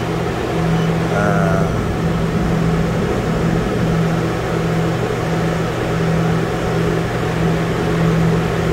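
Refrigeration vacuum pump running with a steady, even hum while it evacuates a small system.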